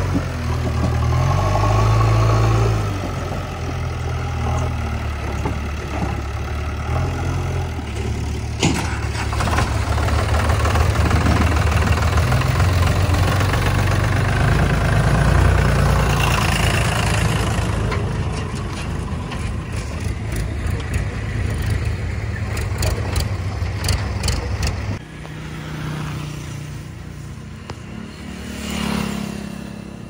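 Diesel engines of a JCB 3DX backhoe loader and a Sonalika tractor running, the pitch stepping up and down as the engines are revved and eased. Near the end the sound drops suddenly to a quieter tractor engine that swells briefly as it approaches.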